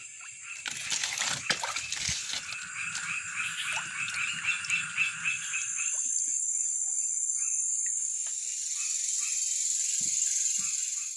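Night swamp chorus: frogs calling in quick repeated pulses, about four a second, that stop about halfway through, over a steady high-pitched insect trill that carries on and grows slightly louder near the end. A few faint knocks in the first couple of seconds.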